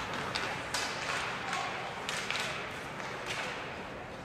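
Ice hockey play: several sharp clacks of sticks and puck, a second or less apart, over a steady hiss of skates on the ice.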